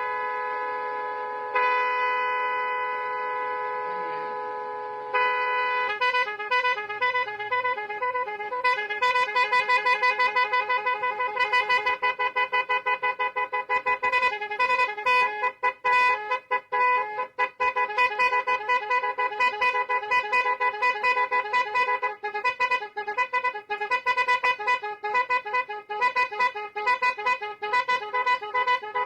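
12-volt electronic eight-tone 'piano' musical car horn sounding loudly while being bench-tested: a held chord-like tone for about the first five seconds, shifting once, then from about six seconds in quick runs of changing notes playing its built-in melodies.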